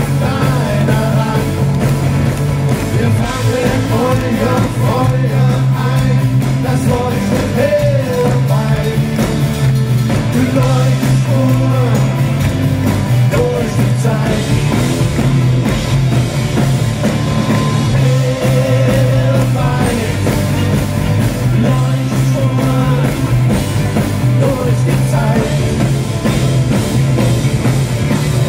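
Live rock band playing a song with electric guitars, bass and drums, a singer's voice carrying the melody over a steady, heavy low end.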